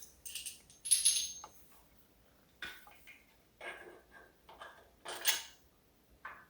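Scattered clinks and small knocks of metal hardware being handled: a washer and tightening knob being fitted onto a quilting frame's stand. The sharpest clinks come about a second in and again about five seconds in.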